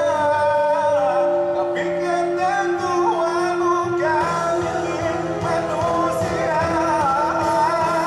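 Live band music with men singing a slow pop ballad through a PA, in long, held, wavering notes.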